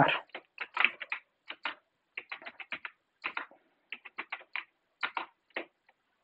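Computer keyboard keys clicking as code is typed, in quick, uneven runs of keystrokes with short pauses between.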